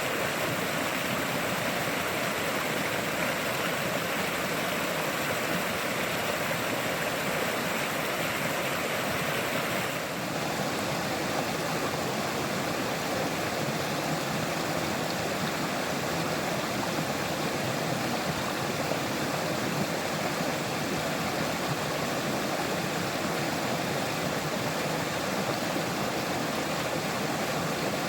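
River water flowing steadily, a continuous rushing with no breaks. About ten seconds in the sound shifts slightly, with a touch less hiss in the upper range.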